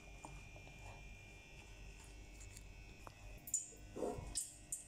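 Steady faint electrical buzz with a low hum under it, and a few short clicks and crackles between about three and a half and five seconds in.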